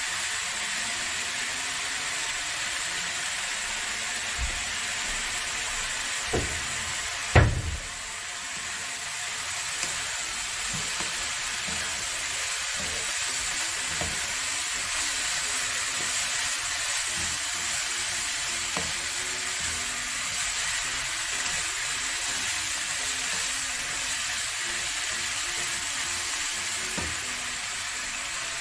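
Sliced eggplant and vegetables sizzling steadily in a frying pan as they are stir-fried with a wooden spatula. A single sharp knock sounds about seven seconds in, with a few fainter knocks around it.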